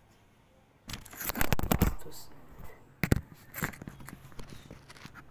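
Kitchen knife slicing through crisp cabbage leaves onto a wooden chopping board: a quick run of crunchy cuts about a second in, then a single sharp knock of the blade on the board and a few lighter taps.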